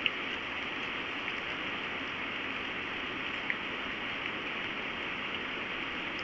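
Steady, even rushing noise of a storm, with a few faint ticks; the sharpest comes right at the start and another about three and a half seconds in.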